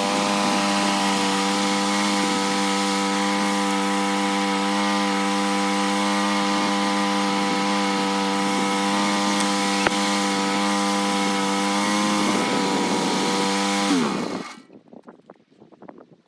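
Portable band sawmill running steadily through a locust log. Its pitch sags about 12 seconds in, then it winds down and stops about 14 seconds in, ending a first cut in which the blade jumped up in a dirt-filled hollow.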